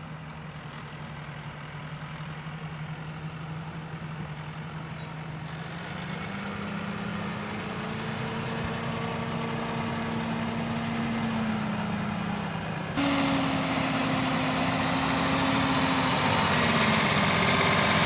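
John Deere 6175R tractor's six-cylinder diesel engine running under ploughing load, growing steadily louder as it comes closer. Its note rises about a third of the way through, and the level jumps up suddenly about two-thirds in.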